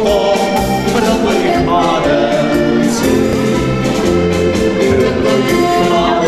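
Live band music with a sung vocal line: a song with a steady beat played for a folk dance.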